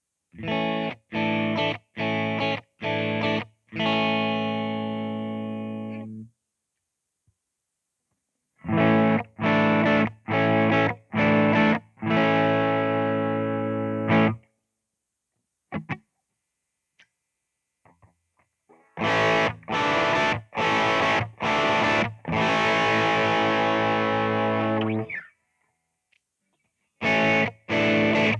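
Fender Stratocaster Blacktop electric guitar played through a Boss GT-100's Twin Reverb amp emulation: three phrases of short, choppy chord stabs, each ending in a chord held for a couple of seconds and then cut off, with silent gaps between the phrases.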